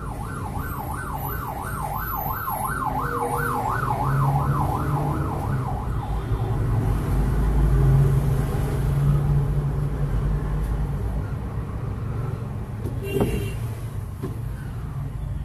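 A fast yelping siren, its pitch rising and falling about four times a second, fades out after about five seconds over a low rumble of road traffic. The rumble swells around the middle, and a short sharp knock comes near the end.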